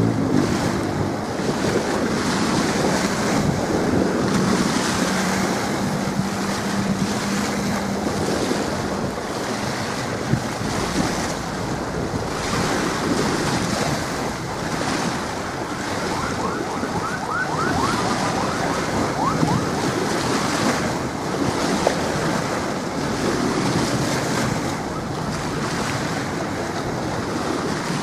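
Strong wind buffeting the camcorder's microphone, with choppy waves washing in, in gusts. A faint low steady hum sounds through the first several seconds.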